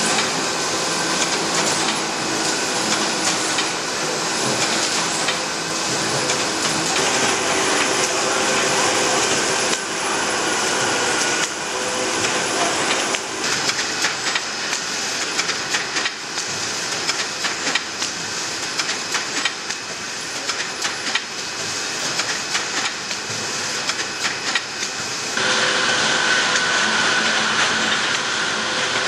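Bread slicing and bagging-and-clipping machinery running: a steady mechanical hiss and hum with constant clattering and clicking. The sound shifts abruptly a few times.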